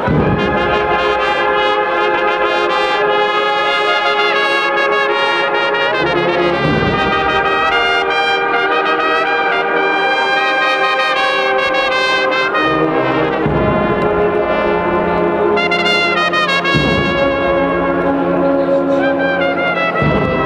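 Spanish Holy Week agrupación musical, a brass band of trumpets and trombones, playing a processional march in loud, sustained full-band chords, the low notes shifting every few seconds.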